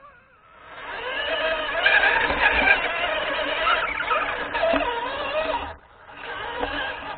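Electric motor and drivetrain of an HPI Venture Toyota FJ Cruiser RC scale truck whining as it drives, heard up close from a camera mounted on the truck. The whine starts about half a second in and its pitch wavers up and down with the throttle. It cuts off briefly a little before six seconds in, then starts again.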